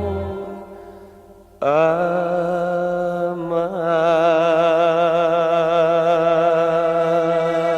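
Romantic ballad: the previous note fades away, then about a second and a half in a singer sings "Amor" and holds one long note with a wavering vibrato over the accompaniment.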